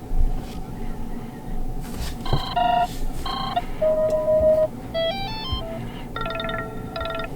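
Oukitel K13 Pro smartphone's loudspeaker playing its default ringtones: bright electronic melody notes begin about two seconds in, followed by a held tone, a quick rising run of short notes, and repeated chiming notes near the end. A dull thump comes right at the start, over a low background hiss.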